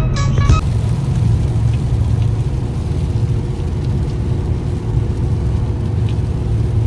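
Steady cabin noise of a car cruising at speed: a low drone from the engine and drivetrain under an even hiss of tyres and wind, from a 2009 Pontiac G8 GT with its 6.2-litre LS3 V8. A short stretch of music cuts off about half a second in.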